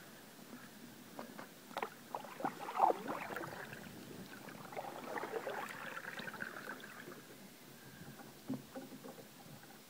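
Canoe paddle strokes in river water. A cluster of small splashes and drips comes about two seconds in, a longer swish of water follows a few seconds later, and a few more drips come near the end.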